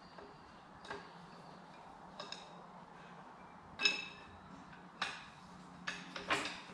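Metal hand tools and parts clinking and tapping against metal several times at irregular intervals. The loudest is a ringing clink about four seconds in.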